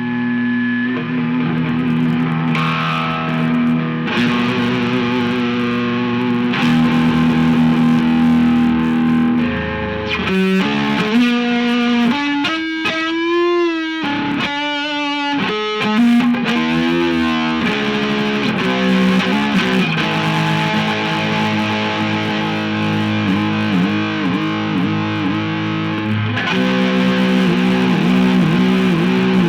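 Electric guitar, a Fender Stratocaster, played through distortion: sustained notes and lead lines with string bends and vibrato, the pitch wavering quickly around the middle and bending up and down repeatedly near the end.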